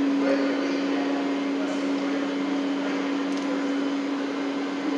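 A steady mechanical hum with one constant low tone and an even hiss over it, never changing, like a ventilation fan or air handler running.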